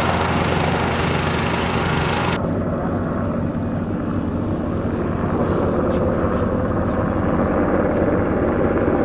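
A fire water tender's engine runs steadily for about two seconds. Then a UH-60 Black Hawk helicopter, flying with a water bucket slung beneath it, takes over as a steady rotor drone that grows louder about five seconds in.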